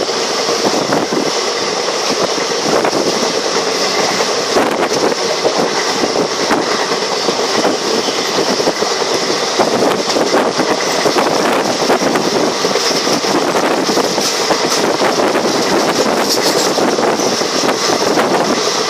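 Train running along the track: a steady rumble of wheels on rails, with faint clicks scattered through it.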